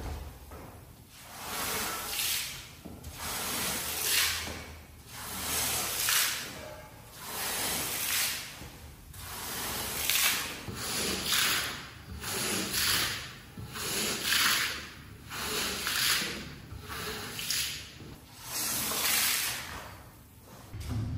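A shaggy rug being worked over with a cleaning tool in repeated strokes, about one every one to two seconds, each a swelling hiss that rises and falls, after a single knock at the very start.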